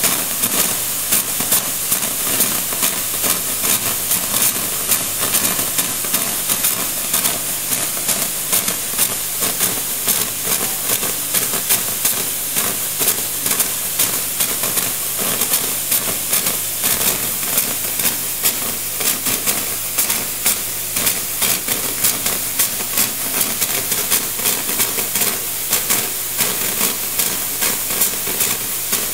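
Espresso machine steam wand venting steam in a steady hiss, with a constant crackle running through it.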